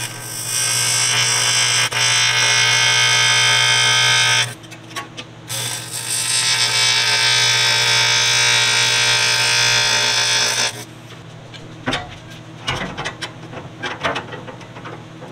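AC TIG welding arc buzzing on 1/8-inch aluminum diamond plate, laying two stitch welds: one of about four seconds, a brief pause, then one of about five seconds. After the arc stops, a few light clicks and knocks follow.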